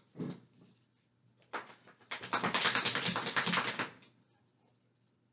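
Rapid typing on a computer keyboard, a quick run of key clicks lasting about two seconds that stops suddenly, after a single click.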